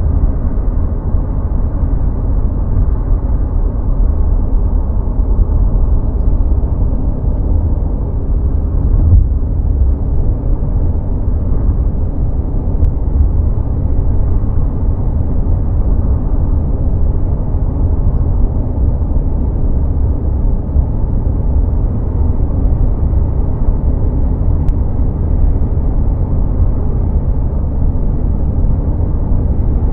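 Steady low rumble of a car cruising at freeway speed: road and tyre noise with engine hum, even throughout.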